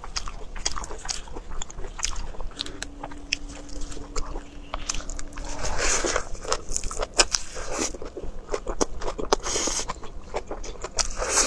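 Close-miked eating: crunchy bites into a fresh lettuce wrap and wet chewing, with many small irregular crunches and mouth smacks.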